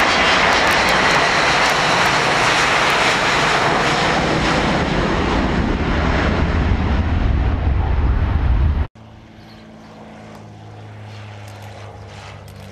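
Jet engines of an MD-80-series airliner running loud as it rolls along the runway, a steady roar whose low rumble grows toward the end. About nine seconds in it cuts off suddenly, replaced by the quieter, steady low hum of a de Havilland Dove's piston engines and propellers.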